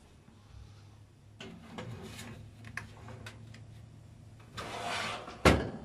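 Foil baking pan slid onto the wire rack of an electric oven with a few light clicks and scrapes, then the oven door shut with one sharp thud near the end.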